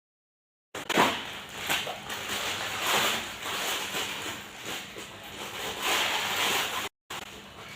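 Parcel packaging crinkling and rustling as it is opened and handled, in uneven swells. There is dead silence briefly at the start and again near the end.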